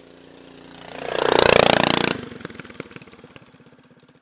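Off-road go kart's engine driving past: it grows louder, is loudest about a second and a half in, dropping in pitch as it passes, then fades away.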